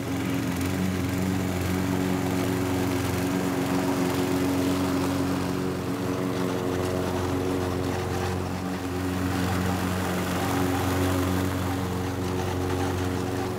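Walk-behind lawn mower running steadily as it is pushed across grass, a constant motor hum.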